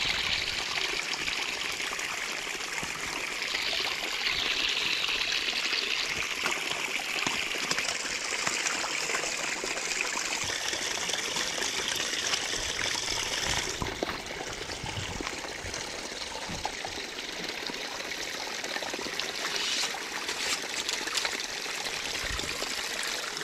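Water trickling steadily through a dam of stones and sandbags into a shallow pool; the hiss turns a little duller about halfway through.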